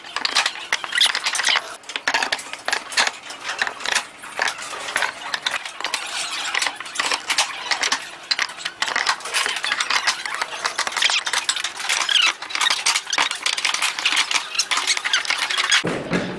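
Thick plywood puzzle blocks knocking, scraping and clattering against one another and the sides of a wooden box as they are lifted out and fitted back in: a dense run of short wooden clicks and knocks.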